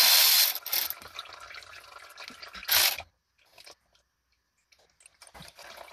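Cordless ratchet spinning out a transmission filter bolt in short bursts: about a second of running at the start and a brief burst near three seconds in, with near silence between.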